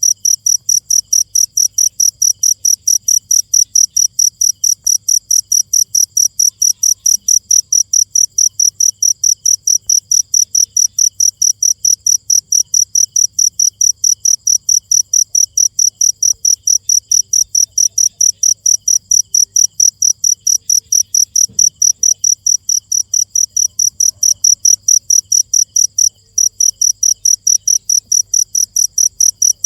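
A cricket chirping loudly and steadily, high-pitched pulses repeating evenly about three times a second, with one brief break near the end.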